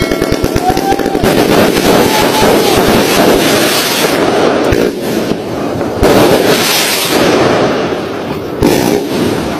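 Fireworks and firecrackers going off in a dense, continuous crackle of rapid pops and bangs.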